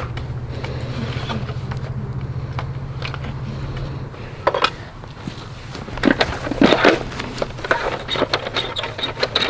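A steady low buzz that stops about four and a half seconds in, followed by scattered scrapes, knocks and plastic clatter of toy trucks being moved through dirt.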